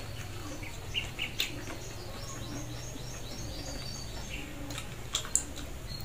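Small birds chirping, with a quick run of repeated high chirps in the middle. A few sharp clicks stand out, the loudest about five seconds in, over a steady low hum.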